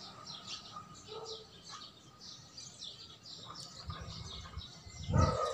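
Small birds chirping repeatedly in the background, many short high calls over a faint steady ambience. A brief, louder low rumble rises near the end.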